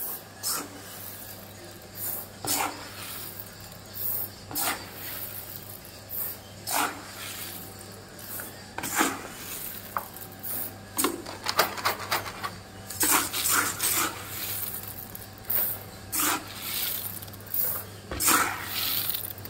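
Coffee roaster running on a batch of robusta: a steady motor hum, with the beans clattering in the turning drum about once every two seconds, the rattles coming closer together in the second half.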